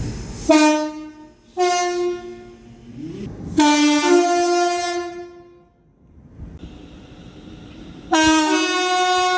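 Train's two-tone horn sounding four blasts: a short low note, then a higher note, then two longer blasts that each start on the low note and step up to the high one, the last running on past the end.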